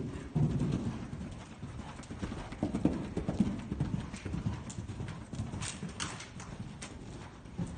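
Hoofbeats of a cantering horse on soft indoor arena footing, a repeating run of dull thuds.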